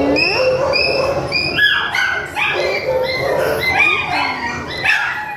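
Several kennelled shelter dogs barking and yelping without a break, short high-pitched calls at many different pitches overlapping one another.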